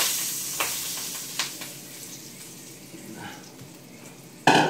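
Floured beef stew chunks dropped into a pan of hot oil, sizzling loudly at first and fading over a couple of seconds, with a few light clicks. A sharp loud knock comes near the end.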